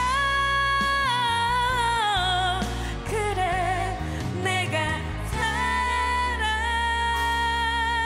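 Female vocalist belting a ballad live into a handheld microphone over band accompaniment. She holds a long high note with vibrato, lets it slide down about two seconds in, and takes up another long held note about five and a half seconds in.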